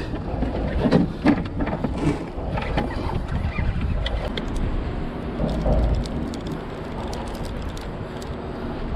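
Wind buffeting the microphone aboard a small open fishing boat, with several knocks in the first couple of seconds as gear is shifted about the deck.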